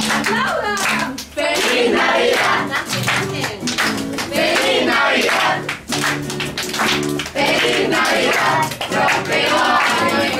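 A group of young voices singing a Christmas song to a strummed acoustic guitar, with hand-clapping along.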